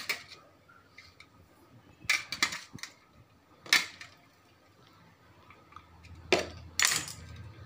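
Kitchen knife cutting coriander in a stainless steel strainer, the blade striking the metal in a handful of sharp clinks a second or two apart.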